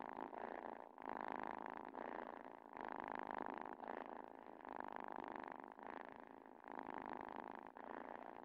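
Domestic cat purring in rhythmic rounds about a second long, excited by the valerian on the ankle it is rubbing against.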